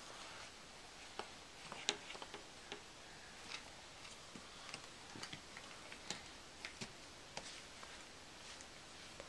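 Light, irregular clicks and taps of jigsaw puzzle pieces being handled and fitted on a puzzle board, the sharpest about two seconds in.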